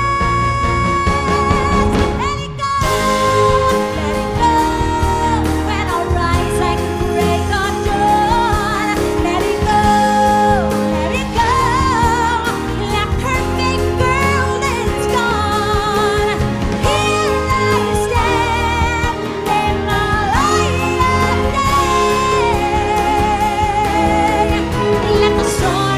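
Loud show soundtrack music with a singing voice, the pitch wavering with vibrato, over steady bass.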